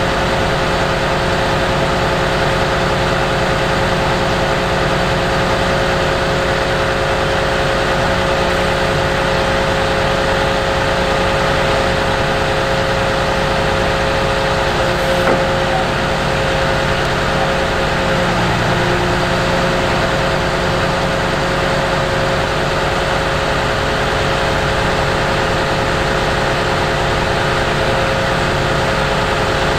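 Ropa Maus 5 beet cleaner-loader running steadily, a constant engine note with a steady tone held over it while its loading boom swings.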